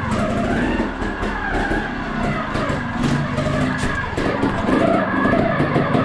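Trials motorbike engine revving up and down as the bike is ridden through a narrow indoor corridor.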